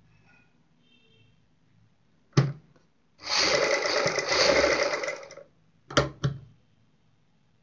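Sewing machine stitching lace trim onto fabric in short runs: a brief burst about two seconds in, a run of about two seconds, then two quick bursts near the end.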